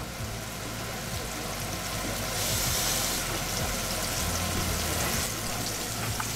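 Flour-dredged salmon fillets frying skin side down in hot olive oil, a steady sizzle from the quick sear. The sizzle grows briefly louder and hissier about two and a half seconds in.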